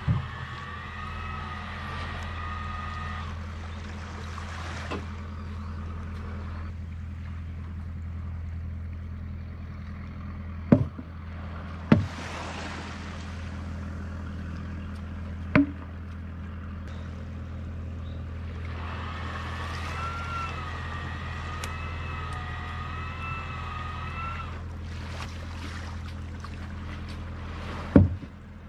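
A motor hums steadily while a boat is hauled up into a boat house. A wavering high whine comes at the start and again about two-thirds of the way through, and a few sharp knocks come about eleven, twelve, sixteen and twenty-eight seconds in.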